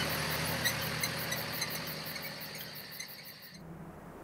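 Insects chirping in a rapid high-pitched pulse, about five a second, over a steady low hum. They fade and cut off suddenly a little over three seconds in, giving way to a soft hiss.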